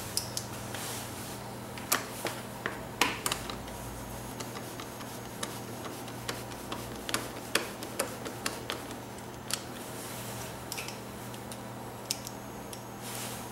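Scattered light clicks and taps of a T25 Torx screwdriver and its screws against the plastic tank side panel of a BMW R1200GS as the panel is screwed down, irregular and a second or so apart, loudest about two to three seconds in.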